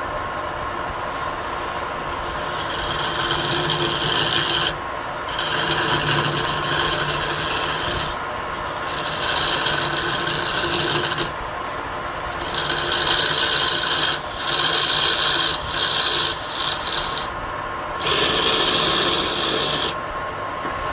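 Wood lathe running with a steady motor whine, while a tool or abrasive scrapes the spinning wood in repeated passes of one to three seconds each, with short breaks between them.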